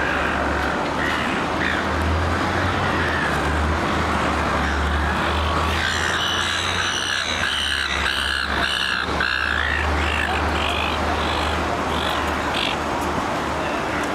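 Silver gulls squawking: a run of harsh repeated calls from about six to ten seconds in, then a few single calls, over a steady low rumble of city traffic.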